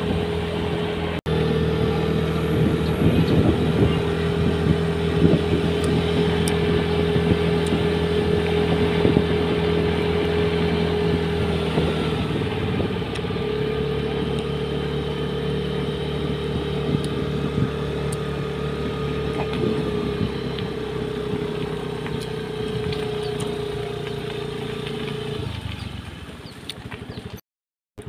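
Motorbike engine running at a steady cruising speed with light rattling, its note dipping briefly about halfway through. It fades out near the end, after a brief break about a second in.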